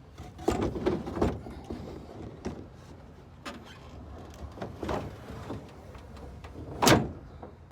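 A series of separate knocks and clunks, seven or so, the loudest one near the end.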